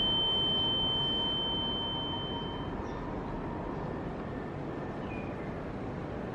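A single high, steady ringing tone fades out about two and a half seconds in. It leaves a steady outdoor background hiss with a faint chirp or two.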